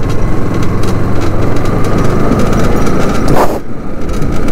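Motorcycle engine running steadily at low road speed, heard from the rider's seat, with a dense rushing noise over it and one brief whoosh about three and a half seconds in.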